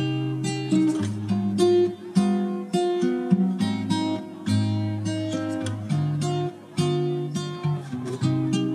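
Background music: acoustic guitar plucked and strummed, notes sounding in quick succession.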